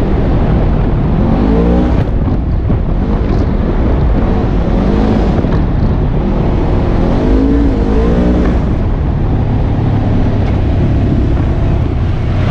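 Polaris RZR 900 S side-by-side's engine running under load on a rough dirt trail, heard from inside the cab, its revs rising and falling several times as the throttle is worked: about a second and a half in, around five seconds in, and again seven to eight seconds in. A steady low rumble and rattle of the machine over the bumps runs underneath.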